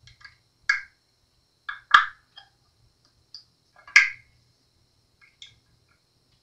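Short squeaks and clicks, about half a dozen spaced over several seconds, from a strap-lock screw being turned by hand into a fresh pre-drilled hole in the bass body, biting snugly into the virgin wood. The sharpest clicks come about two and four seconds in.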